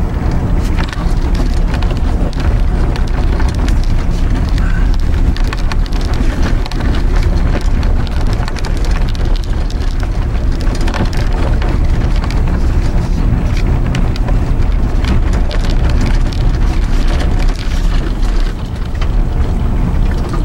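A vehicle driving on an unplowed snow-covered dirt road: a steady, loud rumble of tyres and road noise with a dense patter of small ticks and crackles.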